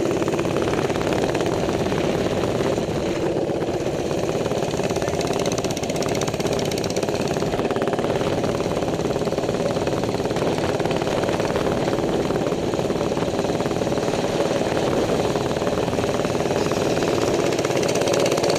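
Minibike's small single-cylinder four-stroke engine running steadily at cruising speed while riding.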